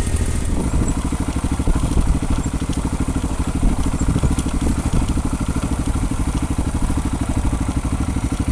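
Adventure motorcycle engine running steadily at low revs while riding, an even rapid pulsing.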